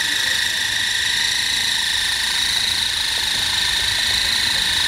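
Small coaxial-rotor R/C helicopter hovering, giving a steady high-pitched whine from its motor and rotors that holds an even pitch throughout.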